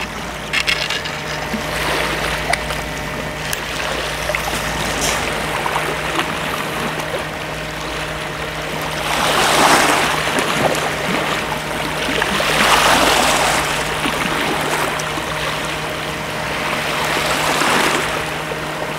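Sea waves washing against a rocky shore: a steady hiss that surges three times, in the middle and near the end.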